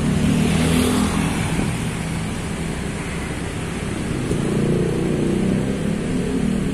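Motorcycle engine running steadily under way, with wind and road noise.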